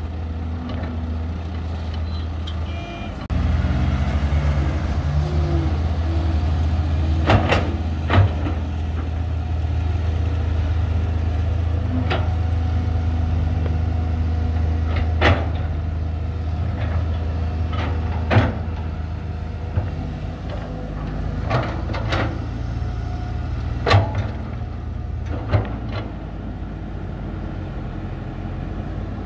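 Cat 320GC excavator's diesel engine running under load, its low drone growing louder about three seconds in and then holding steady. A series of sharp knocks and clanks is heard every few seconds.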